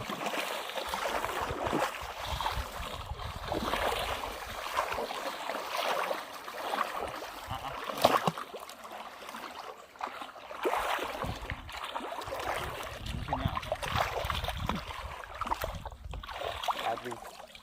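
Shallow water sloshing and splashing in irregular swells as someone wades through it, chasing fish toward a hand scoop net, with a sharper splash about eight seconds in.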